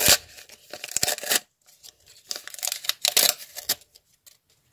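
Handmade paper surprise packet being unfolded and pulled open by hand: paper crinkling and rustling in three bursts, then quiet for the last second.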